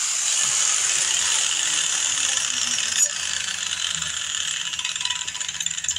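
Power grinder working sheet steel: a steady, loud, high hiss of the abrasive on the metal, with a low motor tone that falls over the first few seconds. There is a sharp click about three seconds in, and the sound eases off in the second half.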